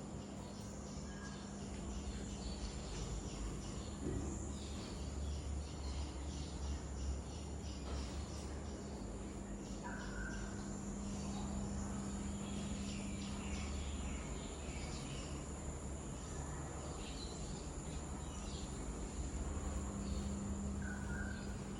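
Steady ambient background noise: a low hum under a constant high-pitched whine, with a few faint short chirps.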